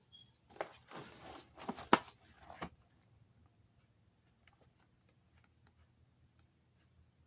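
Cardboard cereal box being torn and crumpled: a few sharp cracks and a rustle in the first three seconds, then only faint ticks.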